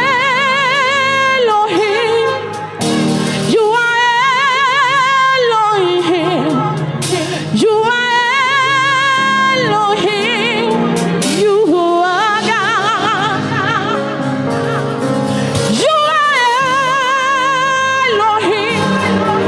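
A woman singing a slow gospel song, holding long notes with wide vibrato in phrases of a few seconds each, over sustained instrumental backing.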